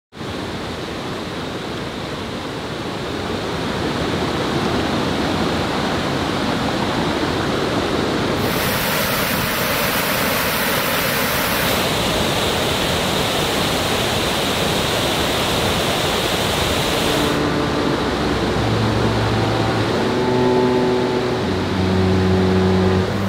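Rushing water of a waterfall and stream, a steady even rush that changes in tone several times. In the last few seconds, slow held music notes come in over it.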